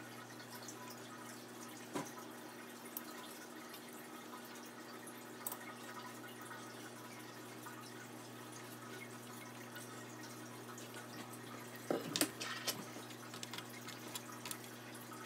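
Small clicks and taps of hands, a basting brush and a bowl working bacon strips on metal baking trays and a wire rack, over a steady low hum, with a cluster of louder clicks about twelve seconds in.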